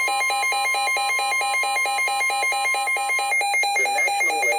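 Emergency Alert System alert tone announcing a severe thunderstorm warning: a loud electronic tone that warbles rapidly between pitches several times a second. A steady high tone sounds with it and stops about three seconds in.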